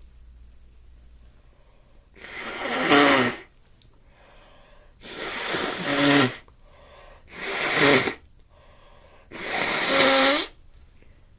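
A person with a stuffy nose sneezing four times in a row, a few seconds apart. Each sneeze swells out of a drawn-in breath and ends in a loud voiced burst.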